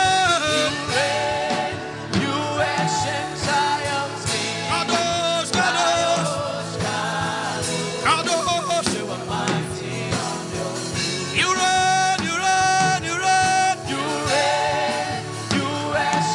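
Worship music: singing over instrumental accompaniment with a steady beat.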